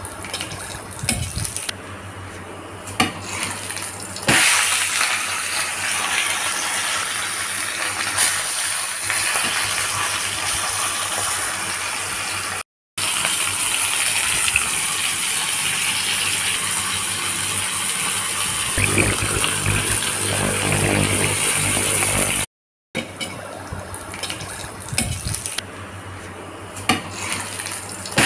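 Ginger slices and a pompano frying in hot oil in a stainless steel pan: a steady sizzle, louder through the middle and cutting out abruptly twice, with occasional clinks of a metal spatula against the pan.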